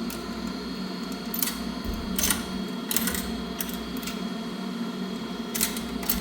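Quarters and a coin-operated laundry dryer's coin mechanism making a handful of sharp metallic clicks over a steady machine hum.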